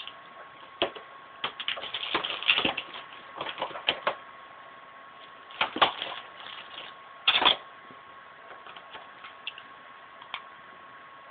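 Makeup cases and brushes being handled and set down: irregular clicks and light clatters, the loudest a short clatter about seven seconds in, then only a few faint ticks.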